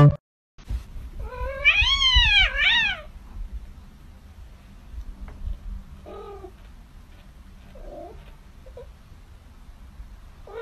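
A cat meowing: a long meow that rises and falls, followed right away by a shorter one, about a second in. After that only faint, scattered small sounds.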